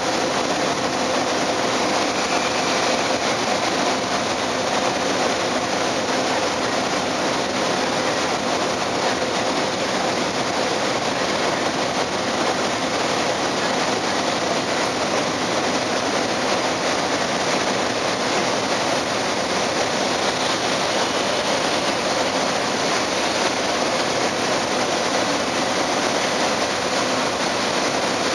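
Steady rumble of a ferry's engines and churning propeller water, heard on deck, with a faint constant hum underneath.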